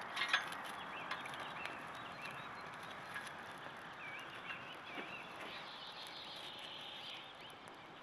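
A few sharp cracks and clicks from dry sticks being laid on a small campfire, the loudest just after the start, over a steady hiss. Birds chirp in short warbling phrases about halfway through.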